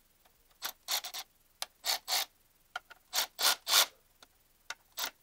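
Ratcheting wrench rasping on its back-swings, about a dozen short strokes at uneven spacing, as the camshaft bearing cap nuts are worked loose a little at a time.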